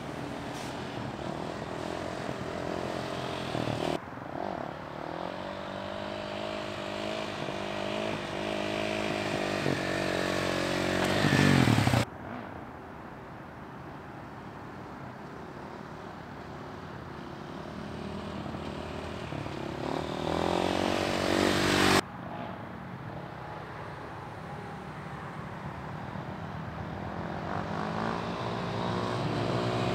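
Dirt bike engine running and revving, its pitch rising and falling with the throttle and growing louder as the bike approaches. The sound cuts off abruptly about 4, 12 and 22 seconds in, as one clip gives way to the next.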